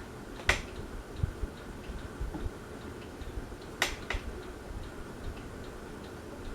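Encon ceiling fan running on high with a light, regular tick about three times a second, a little noise the fan makes as it runs. Two sharp clicks stand out, about half a second in and just before four seconds in.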